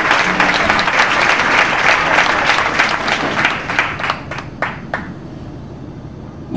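Audience applauding, the clapping thinning out to a few scattered claps about four seconds in and dying away about a second later.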